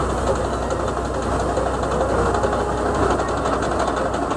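Combine harvester running steadily while cutting rice: a constant low engine hum under dense mechanical noise with a rapid, even ticking.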